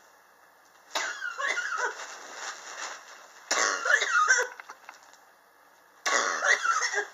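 A person coughing in three fits, each a run of several harsh coughs: one about a second in, a louder one midway, and one near the end. It is a chronic cough that has gone on for years, which the person blames on extreme temperature changes in their apartment.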